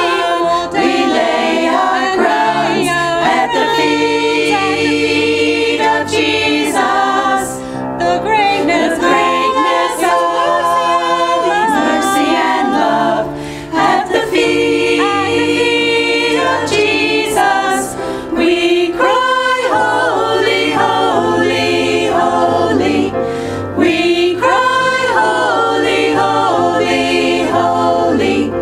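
A small group of women singing a sacred song together in harmony, with low steady notes sounding beneath the voices.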